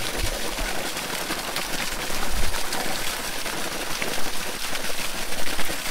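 Well water gushing steadily from a pipe outlet and splashing down, a continuous rushing splash.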